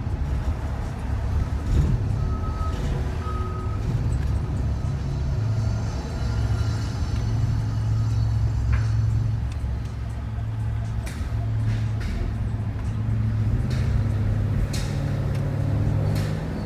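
Shuttle van running on the road, heard from inside the cabin: a steady low engine hum with road noise, its pitch rising near the end. A few short high beeps sound in the first few seconds.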